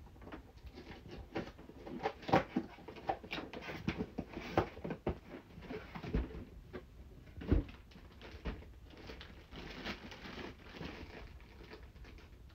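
A cardboard shipping box being opened by hand: tape and flaps crackling and scraping, the box lifted off a rolled pillow with a couple of dull thumps about six and seven seconds in, then the pillow's plastic wrapping rustling.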